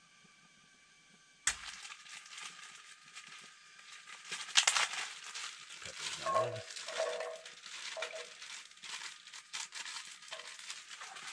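Plastic or paper packaging crinkling and rustling close to the microphone as it is handled and opened, starting suddenly about a second and a half in after near silence.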